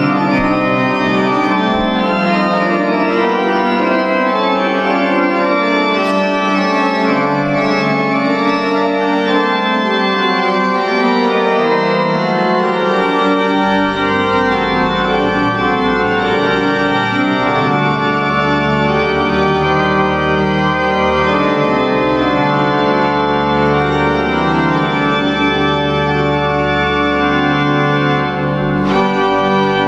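Church organ playing sustained full chords, with deep bass notes coming in about halfway through.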